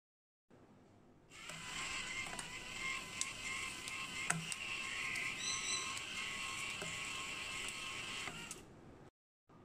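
Small electric motor of a prototype banknote counting machine running with a steady whine as its rubber feed rollers pull banknotes through, with scattered sharp ticks. It starts about a second in and stops near the end.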